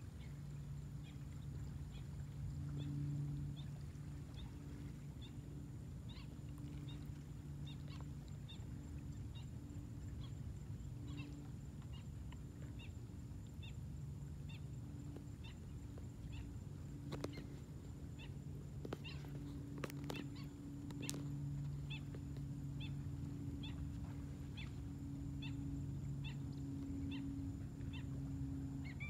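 Night chorus of calling animals: short high chirps repeating about every half second over a low droning call that swells and fades. A few sharp clicks come about two-thirds of the way through.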